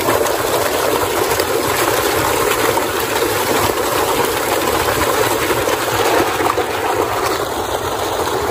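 Tubewell outlet pipe gushing a heavy stream of water, a loud steady rush.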